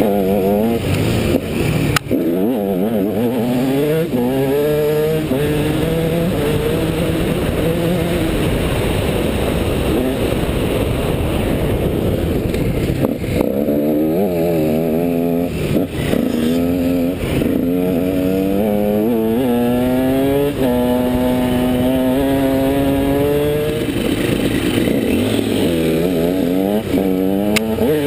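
Dirt bike engine ridden hard, its pitch climbing as it revs and dropping back at each gear change, over and over, with a steady rush of wind noise on the helmet-mounted microphone.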